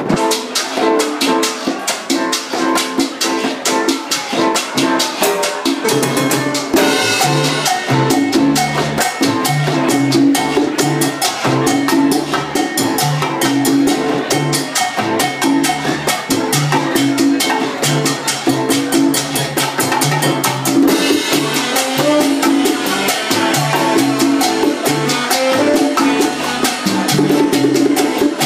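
Live Latin band playing a salsa number, with drums, maracas and a bass line that grows stronger about six seconds in.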